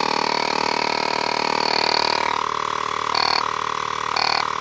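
A QCY portable cordless air pump's small electric compressor running with a steady, loud buzz.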